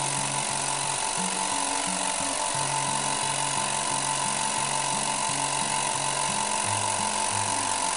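Oil-less air compressor running steadily under load as it pumps up its tank, a smooth even hum with a steady whine, described as very quiet. Background music plays underneath.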